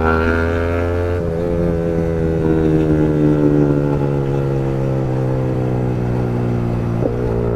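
Yamaha MT-15's single-cylinder engine running through an Akrapovic long-can aftermarket exhaust while riding, a steady bassy note. The note changes about a second in, then holds, with a short blip near the end.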